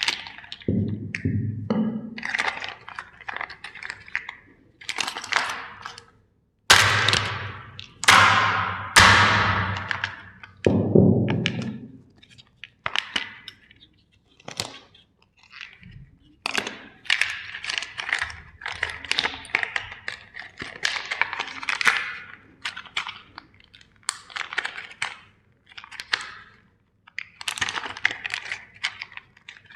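Plastic toy steam-engine trains being crushed: a steady run of cracks and crunches, loudest in a few heavy snaps about seven to eleven seconds in.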